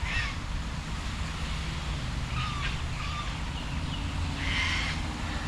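Birds calling a few times, short cries near the start, about two and a half seconds in, and near the end, over a steady low rumble.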